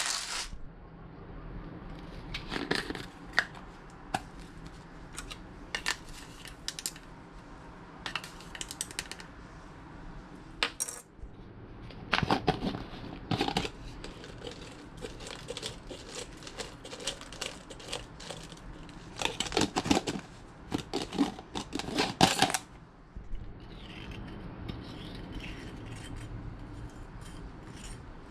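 Kitchen handling sounds in scattered bursts of clicks and clinks: a screw-top jar of sun-dried tomatoes being opened and emptied into a bowl of marinade, with utensils knocking against the bowl. Softer stirring of the wet mixture with a spatula follows near the end.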